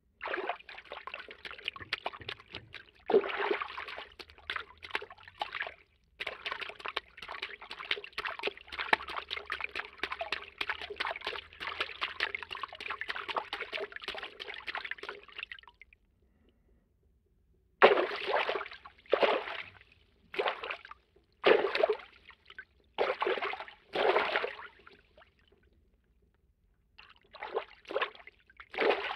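Cartoon water-movement foley: the sound of water being stirred and sloshed. A long stretch of it, with a brief break about six seconds in, stops at around sixteen seconds. After a pause comes a string of short separate water movements about a second apart, then more after another pause near the end.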